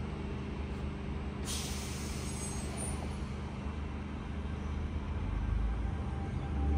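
Air brakes releasing with a sudden hiss about a second and a half in, over a steady low hum of a standing vehicle. A low rumble builds near the end.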